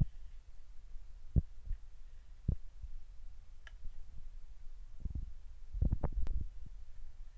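Kitchen knife cutting potatoes into wedges on a ceramic plate: irregular dull knocks as the blade goes through and meets the plate, several in quick succession about five to six seconds in.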